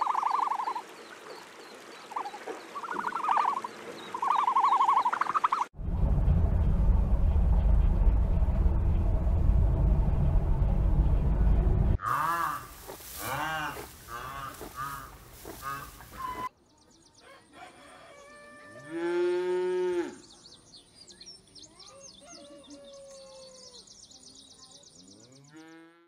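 A string of separate animal sound clips. There are short calls near the start, a loud low rumble for about six seconds, and then a run of quick rising-and-falling calls. Last comes a cow mooing once, a long low call, over high steady chirping.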